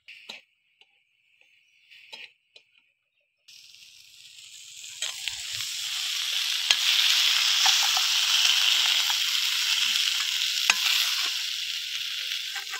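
A vegetable-stem and fish-head chorchori sizzling in a metal pan while a metal spatula stirs and scrapes it, with scattered clicks of the spatula against the pan. After a few near-quiet seconds with light taps, the sizzle builds, stays loud through the middle, and eases off near the end.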